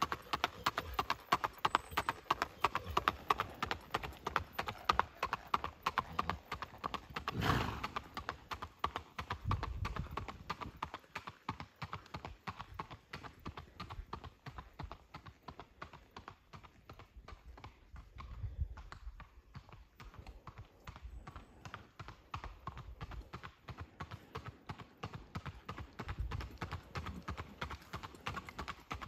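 Shod-or-bare hooves of a Missouri Fox Trotter gelding under saddle striking asphalt in a quick, even clip-clop. The hoofbeats grow fainter partway through and come back louder near the end.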